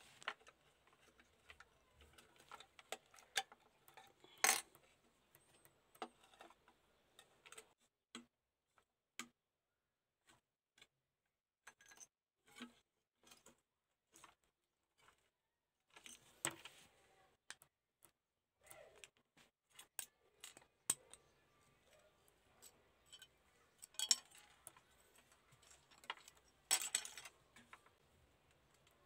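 Small metallic clicks, taps and scrapes as the rusty die-cast metal body of a toy model car is handled and taken apart, irregular, with a few louder knocks.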